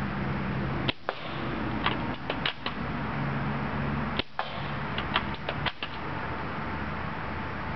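UTG MK96 spring-powered airsoft sniper rifle being shot and worked: an irregular series of sharp clicks and snaps from the shots, the bolt being cocked and BBs striking cans, over a steady low hum. The sound cuts out briefly and suddenly a few times.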